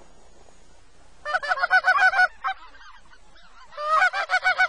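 Two quick runs of goose honks and clucks, one about a second in and another near the end, each a rapid string of short, rising notes.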